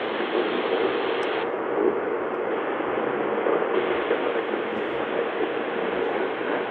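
QODOSEN DX-286 portable receiver's speaker playing a weak shortwave AM signal on 11,815 kHz, mostly steady hiss and static. The hiss turns duller about a second and a half in and brighter again just before four seconds, as the receiver's bandwidth is narrowed and widened again.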